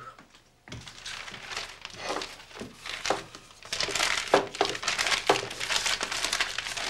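Paper crinkling and rustling as it is handled, starting under a second in, with a few light knocks.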